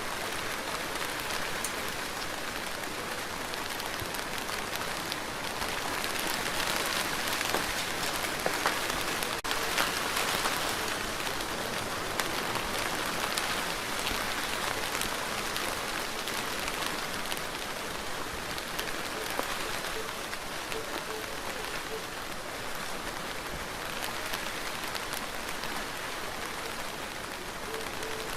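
Steady rain falling on a surface, with individual drops ticking through the hiss; it swells a little for a few seconds partway through.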